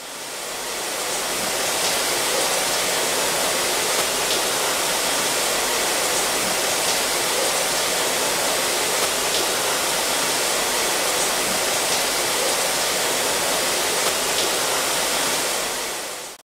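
Steady rush of water in a cider mill's apple-washing tank, with a few faint clicks. It swells in over the first couple of seconds and cuts off just before the end.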